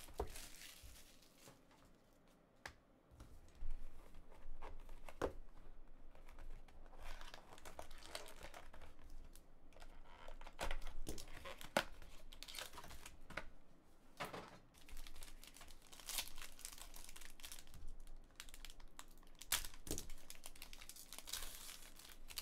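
A hockey-card hobby box being opened by hand: shrink-wrap plastic crinkling, the thin cardboard box end tearing, and near the end a foil card pack crinkling as it is pulled open. Irregular crackles and rips with scattered sharp clicks, quieter for a moment a couple of seconds in.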